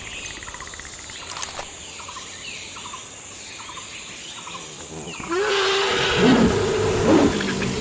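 Creature sound effect in the style of the Predator: a series of short clicks and chirps over outdoor ambience, then a loud growl-roar from about five seconds in.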